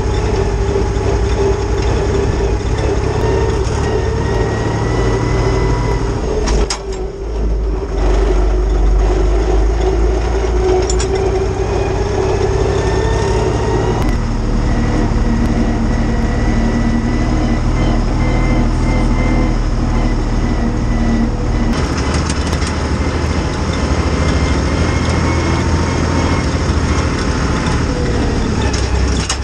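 IHC 633 tractor's three-cylinder, three-litre diesel engine running steadily while driving, dropping away briefly about seven seconds in.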